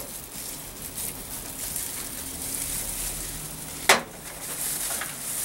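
Soft, steady wet rustle of a silicone pastry brush spreading oil over the skin of a whole raw fish, with one sharp click a little before four seconds in.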